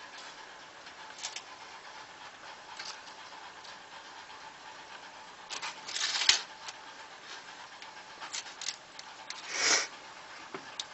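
Soft rustling and scraping of hands rolling puff pastry on baking paper, with two louder rustles about six and ten seconds in.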